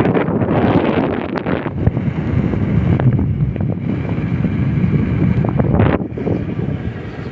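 Wind buffeting the microphone: a loud, uneven rumbling noise, brighter for the first two seconds and then mostly a low rumble, with a few faint clicks.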